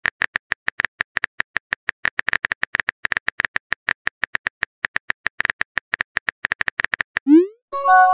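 Phone-keyboard typing sound effect: a fast, even run of short clicks, about eight a second, with silence between them. About seven seconds in the clicks stop and a short rising whoosh sounds, then a message-alert chime starts near the end as the new text arrives.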